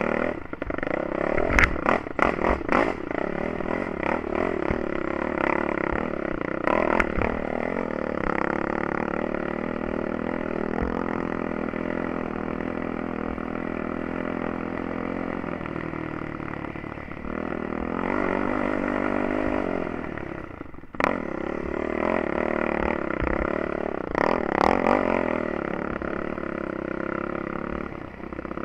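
Yamaha YFZ450 ATV's single-cylinder four-stroke engine running over rough trail, its pitch rising and falling with the throttle, with clatter and knocks from the machine over rocks and bumps in the first few seconds and again near the end. About two-thirds of the way through the engine briefly drops off, then picks up sharply.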